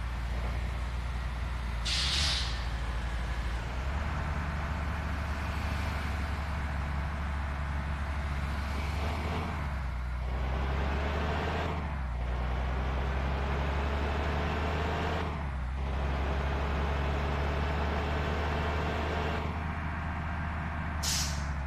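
Tour bus diesel engine pulling away and accelerating, its pitch rising and dropping back at each of several gear changes. A short pneumatic hiss comes about two seconds in and another near the end.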